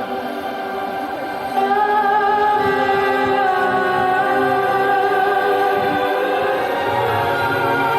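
Choral music: a choir singing long held notes, swelling louder about a second and a half in.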